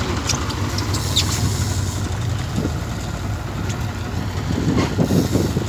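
Boat engine running steadily with a low rumble, with a few faint clicks in the first second or so. Wind buffets the microphone toward the end.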